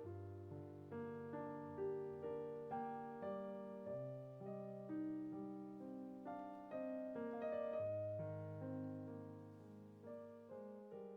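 Background piano music: a calm, gentle piece with notes struck about twice a second, each dying away.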